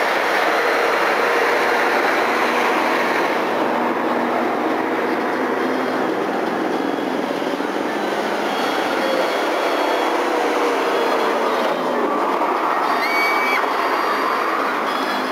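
Steady noise of passing road traffic, with a few faint short whistle-like tones near the end.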